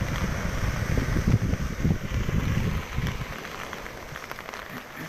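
Wind buffeting the microphone in gusts over a steady hiss of light rain and surf as a storm comes in. The gusts ease about three seconds in.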